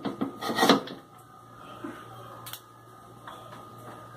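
Fresh parsley being pushed and rustled into a plastic blender jar, loud handling knocks in the first second, then a few light clicks over a faint steady hum.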